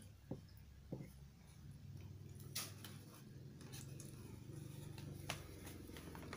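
Faint clicks and scrapes of a metal spoon scooping rice from a paper food wrapping, with light crinkling of the paper. A steady low hum runs underneath from about two seconds in.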